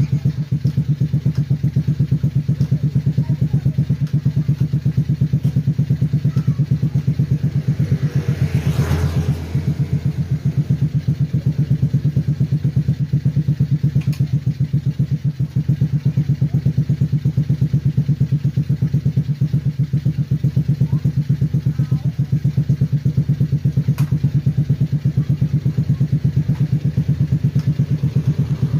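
Small offroad go-kart engine idling steadily with a fast, even pulse. A brief burst of noise about nine seconds in.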